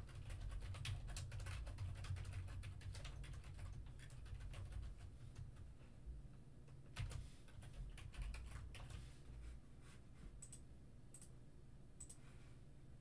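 Typing on a computer keyboard: quick runs of keystrokes for about six seconds, then a few separate clicks spaced out through the rest.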